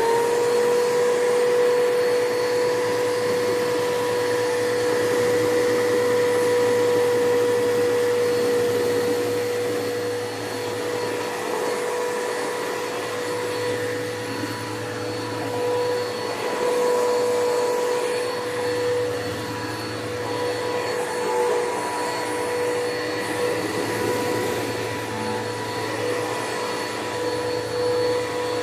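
Bissell Powerforce Bagless upright vacuum cleaner running at full speed, its motor giving a steady high whine over the rush of air. The loudness wavers a little in the second half.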